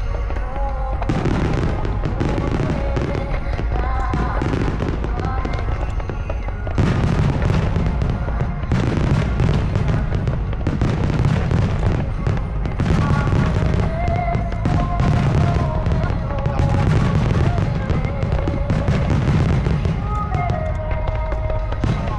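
Fireworks shells bursting in a dense, continuous barrage of cracks and booms. The barrage grows thicker and louder about seven seconds in. Music with a melody plays along under the bursts.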